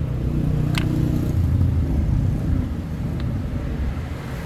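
Steady low engine rumble, with two short sharp clicks, one under a second in and one about three seconds in.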